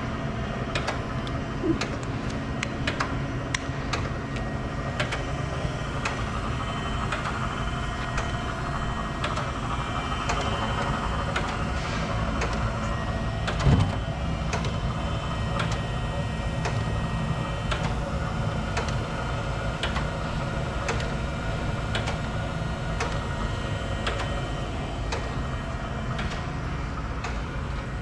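Acer AGS-1224AHD hydraulic surface grinder running under power: a steady machine hum with frequent light clicks and ticks, and one louder knock about 14 seconds in.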